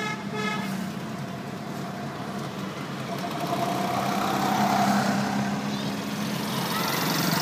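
Road traffic heard from inside a moving car: the car's engine runs steadily under the noise of surrounding vehicles. A vehicle horn gives two short toots right at the start, and the traffic noise swells as vehicles pass close by, loudest about halfway through and again near the end.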